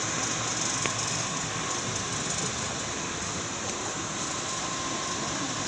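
Air conditioner indoor unit running, its fan blowing air with a steady, even whoosh and a faint steady hum.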